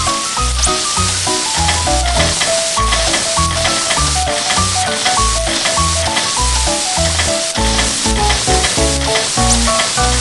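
Upbeat background music with short stepping melody notes and a regular bouncing bass, over a steady sizzle of food frying in a pan.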